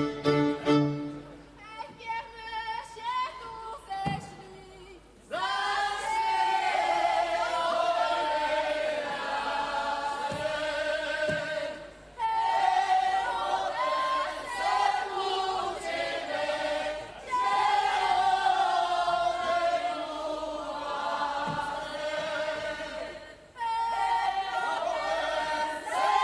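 Podhale highlander (góral) folk song sung unaccompanied by a mixed group of men and women. The full group comes in about five seconds in and sings in phrases of about six seconds with short breaks between them.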